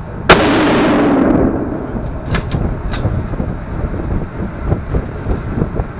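A single loud rifle shot from a .270 Remington Gamemaster 760 pump-action rifle, its report ringing through the indoor range for about a second. A few light, sharp metallic clicks follow about two to three seconds in.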